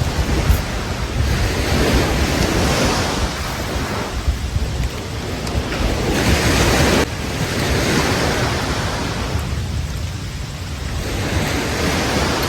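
Waves washing onto a beach, swelling every few seconds, with wind buffeting the microphone as a low rumble. The sound drops abruptly about seven seconds in.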